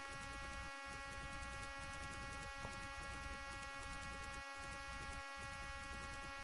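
Faint, steady electrical hum and hiss with several fixed tones: the background noise of the recording chain.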